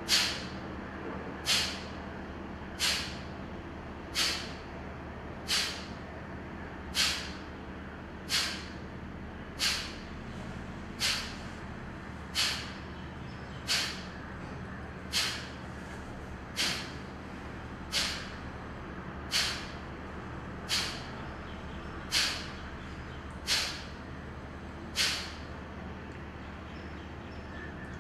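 Kapalbhati breathing: a man's forceful exhalations through both nostrils. They are short, sharp puffs of air with a frictional rush, evenly paced about every second and a half, nineteen in a row. They stop a few seconds before the end.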